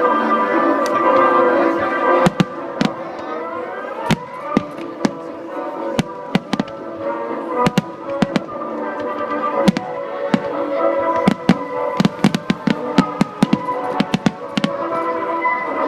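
Aerial fireworks shells bursting in a rapid, irregular string of sharp bangs, starting about two seconds in and coming thicker toward the end, over steady background music.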